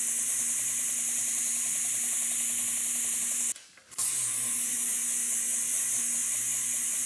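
2-inch belt grinder running with a Trizact abrasive belt while a steel blade is ground against it: a steady grinding hiss over the motor's hum. It cuts out for about half a second halfway through, then carries on as before.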